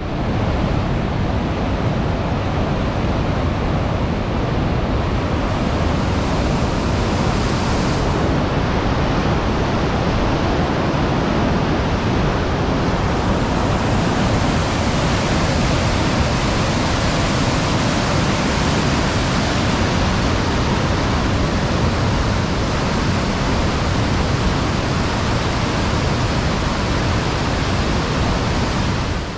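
Mountain river rushing: a loud, steady wash of water with no distinct splashes, cutting in abruptly and fading out at the end.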